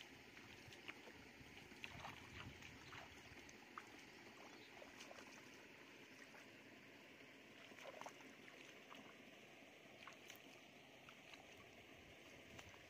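Faint splashing and sloshing of bare feet wading through shallow muddy water, with scattered small splashes.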